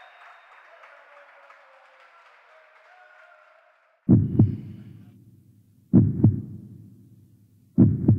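Faint crowd and court noise of an indoor hall that cuts off about four seconds in. A heartbeat sound effect replaces it: a loud, low double thump (lub-dub) that comes three times, slowly, about every two seconds.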